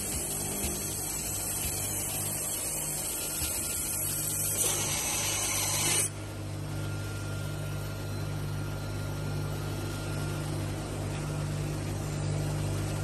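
Cookware bowl polishing machines running, their electric motors giving a steady low hum under a high hiss. Around four and a half seconds in a louder rushing noise builds, and the hiss cuts off abruptly at about six seconds.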